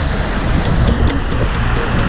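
Loud rush of tumbling waterfall water with wind buffeting the microphone, and background music whose steady ticking beat comes in about half a second in.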